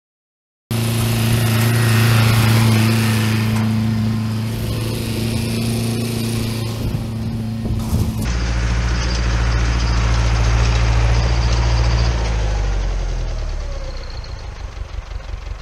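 International Harvester 845 XL tractor's diesel engine running steadily under load as it drives past pulling a meadow harrow. The sound starts abruptly about a second in, turns deeper and less bright about eight seconds in as the tractor passes, then fades away.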